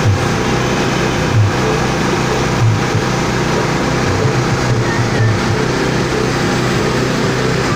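Vertical pellet mill driven by a small engine, running steadily under load while it turns out pellets, with low thuds that recur every second or so.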